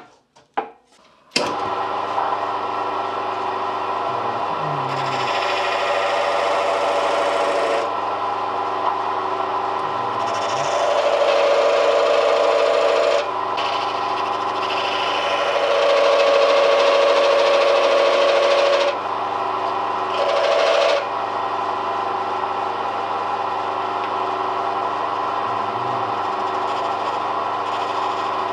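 A few clicks, then a belt-driven lathe starts about a second in and runs steadily at its second-slowest speed. Four times a tool is pressed into the spinning wooden handle to cut grip grooves, each a louder stretch of cutting and scraping over the motor's hum.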